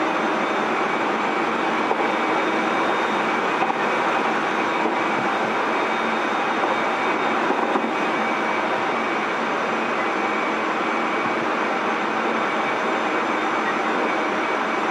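Tobu 30000 series electric train heard from inside its motor car, running steadily at speed: an even rumble of wheels on rail and running gear, with a few faint steady tones in it.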